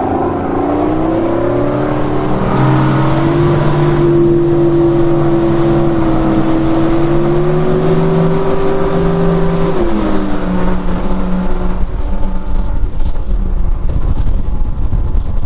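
Campbell boat's engine pulling away under throttle: its pitch rises at the start, holds steady for several seconds, then drops about ten seconds in as the throttle is eased, leaving a lower, rougher running sound with wind and water noise.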